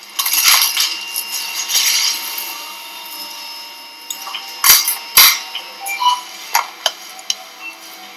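Metal surgical instruments clinking and knocking: a rustle at first, two sharp knocks about halfway through, then lighter clicks, with a few short high tones.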